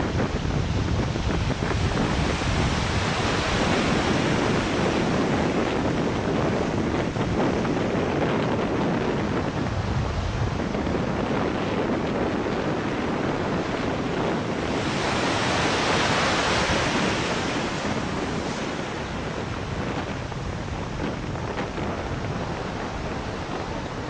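A steady rushing noise that swells twice, about three seconds in and again about fifteen seconds in, then eases off slightly near the end.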